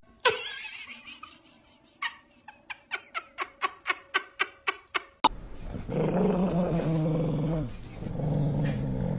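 Dog growling in two long, low stretches through the second half, after a run of quick short ticks at about four a second.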